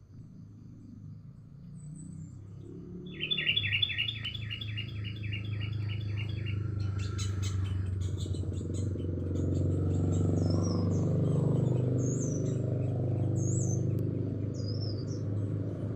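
Sooty-headed bulbul (kutilang) calling: a rapid run of chirps about four a second, then high, short downward-sliding whistles and chips, over a steady low rumble.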